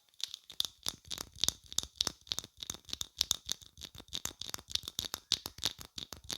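Soft makeup brush rubbed and dabbed rapidly against the microphone, giving a dense run of scratchy, crackling strokes, about six to eight a second.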